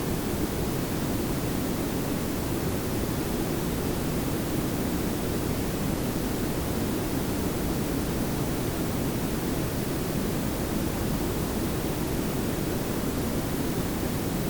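Layered pink and brown noise: a steady, even hiss over a low rumble, unchanging throughout.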